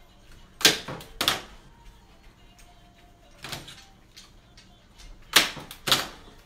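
Stanley light-duty hand staple gun driving staples through canvas into a wooden frame: five sharp clacks, in two quick pairs with a softer one between.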